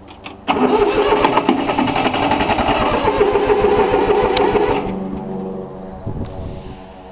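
3-cylinder Yanmar diesel engine being cranked over by its starter for about four seconds without catching, then dropping away. It will not fire because its fuel lines were not bled.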